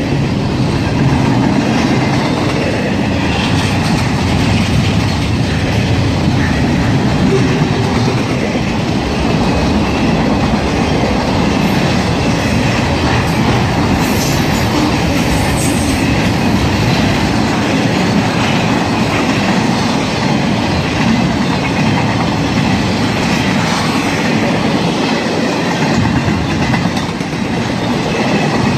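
Intermodal freight train's cars, double-stack container cars and trailer flatcars, rolling past: a steady, loud rumble of steel wheels on the rails.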